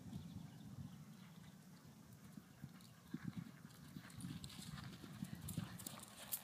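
Horse's hooves cantering on a sand arena: faint, dull thuds that grow louder over the last few seconds as the horse comes closer.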